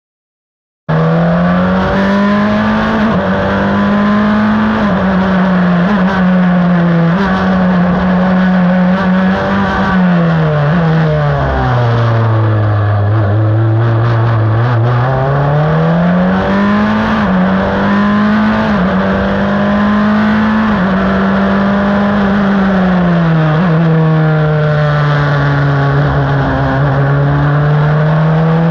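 Crawford FL15 open-wheel race car's engine, heard onboard, running hard at high revs and cutting in abruptly about a second in. Its pitch steps up and down with gear changes, falls low in the middle as the car slows through a corner, then climbs again, with another dip near the end.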